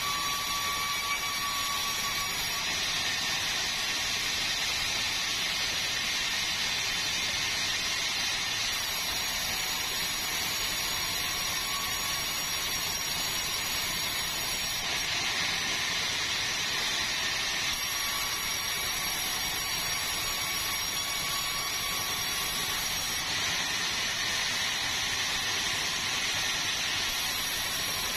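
Sawmill machinery running steadily: a continuous, high-pitched rushing noise with a faint whine that comes and goes.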